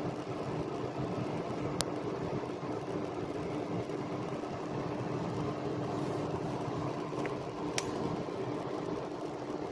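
An oven fan running steadily with a low hum, with two brief sharp clicks about two seconds in and near the end.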